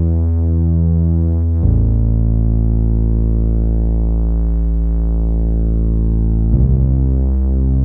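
Low synth bass from a Korg Minilogue XD playing three long held notes, E, then A, then C, with the pitch changing about a second and a half in and again near the end.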